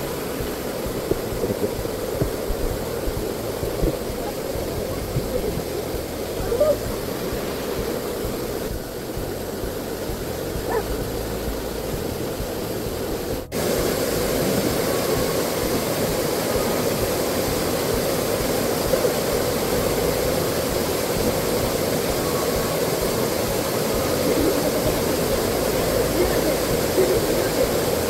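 Mountain stream running over rocks: a steady rush of water, a little louder from about halfway through.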